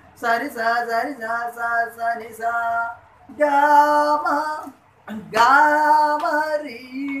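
A man singing a Carnatic melody unaccompanied: a run of short, separate sung syllables, then two longer held phrases with wavering, ornamented pitch.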